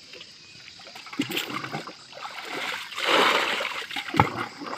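Muddy water splashing as it is scooped and thrown out of a shallow ditch with a bowl, in irregular splashes, the loudest about three seconds in. A sharp knock near the end.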